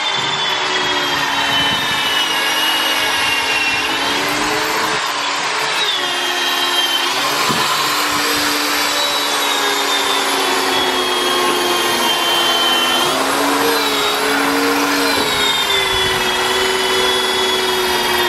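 Electric power drill whining as hurricane shutters are fastened, its pitch sagging slowly under load and jumping back up each time the trigger is eased and squeezed again, around 4, 6, 13 and 15 seconds in.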